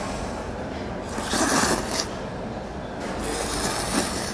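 A man slurping jjamppong noodles off chopsticks: two long, noisy slurps, the first about a second in and the second from about three seconds in to near the end.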